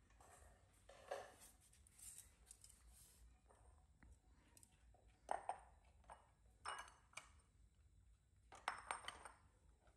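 A few quiet, scattered clinks and taps of kitchen utensils: a metal mesh strainer, a bowl and chopsticks being picked up and set down. The clearest clinks come about five seconds in and again near the end.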